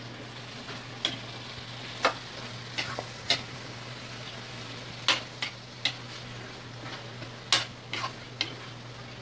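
Metal spatula clinking and scraping against a metal frying pan as chicken and vegetables are stirred, in about a dozen irregular sharp knocks, over a steady sizzle of sautéing.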